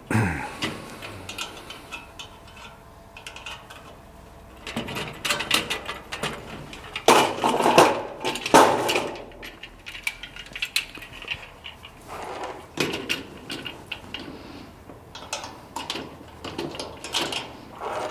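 Garden cart panels and fittings clattering and knocking as they are handled and fitted together. The knocks come irregularly, with a louder cluster of clanks about seven to nine seconds in.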